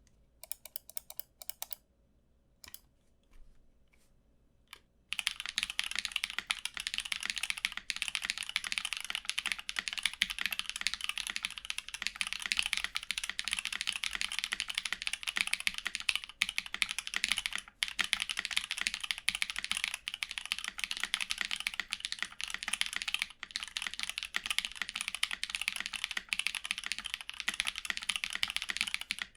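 Typing on a Think6.5 v2 mechanical keyboard with lubed, filmed Glorious Panda tactile switches and GMK keycaps. A few separate keystrokes in the first five seconds, then steady, fast typing.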